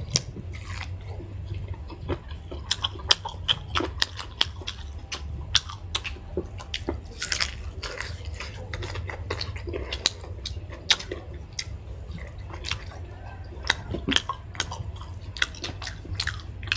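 Close-miked chewing and mouth sounds of people eating chicken and rice: irregular wet clicks and smacks, several a second, over a low steady hum.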